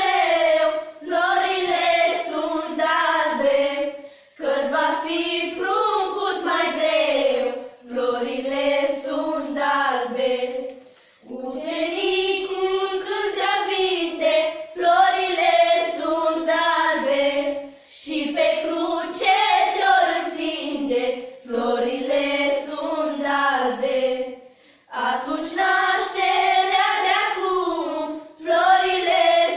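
A group of schoolgirls singing a traditional Romanian Christmas carol (colind) unaccompanied, in phrases of a few seconds separated by short breaths.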